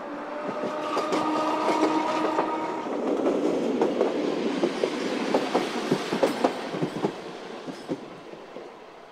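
Streetcar passing close by on street-running tracks. A steady pitched hum for the first few seconds gives way to a run of wheel clicks over rail joints, which fade as the tram moves away near the end.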